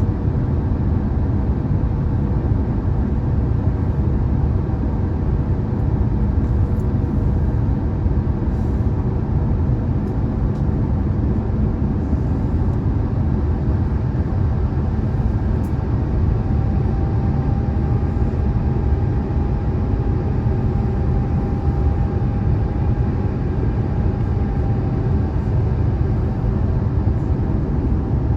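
Steady in-flight cabin noise of an Airbus A350-1000 on approach: a low rumble of airflow and its Rolls-Royce Trent XWB-97 engines heard from a window seat. A faint thin tone holds steady for several seconds in the second half.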